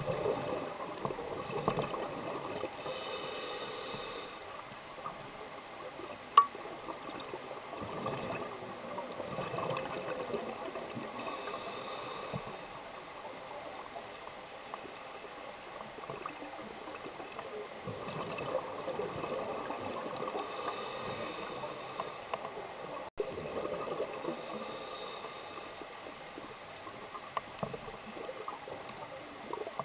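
Scuba diver's exhaled bubbles from a regulator, heard underwater: four bubbling bursts of about a second and a half each, several seconds apart, over a steady muffled underwater hiss with scattered small clicks.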